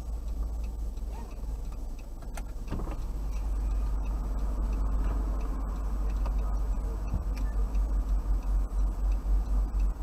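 Car engine idling, heard from inside the cabin through a dashcam microphone: a steady low rumble that begins to pulse from about seven seconds in, with a faint ticking.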